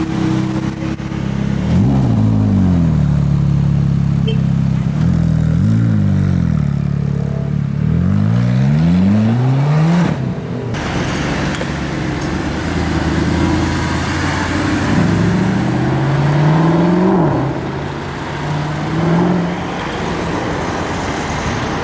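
Ferrari 458 Spider's V8 engine being revved again and again, its pitch sweeping up and falling back several times. After a sudden cut, a Mercedes-Benz SLS AMG Roadster's V8 accelerates, rising in pitch twice.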